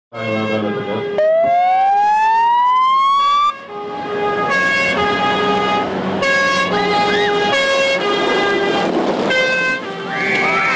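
Fire engine's electronic siren: a rising wail, then a pattern of alternating steady tones.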